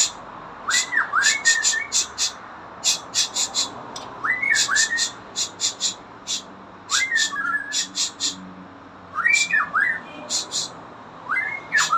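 Pet songbird calling in quick bursts of sharp, high chirps, with a short dipping whistle about every two to three seconds.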